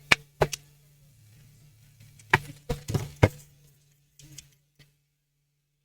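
Sharp, light clicks and taps of small tools on a laptop motherboard: two near the start, a quick cluster of four around the middle, and a few fainter ones later, over a faint steady low hum.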